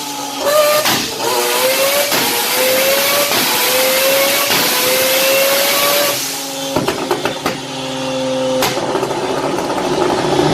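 Mazda RX-7 rotary engine accelerating hard, its note climbing and dropping back several times as it shifts up. It then settles into a steadier note with a run of sharp pops and one loud crack near the end.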